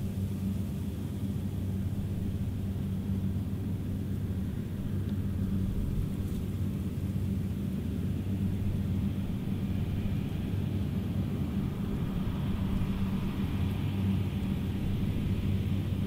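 Claas Lexion 740 combine harvester running under load while threshing rye: a steady, low engine and machinery hum with a constant drone. It grows a little louder in the second half.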